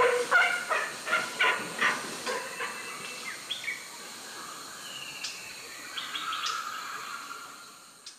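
A rapid series of short chirping calls, several a second, for about the first two seconds. After that come fainter scattered calls and a few short gliding notes over forest ambience.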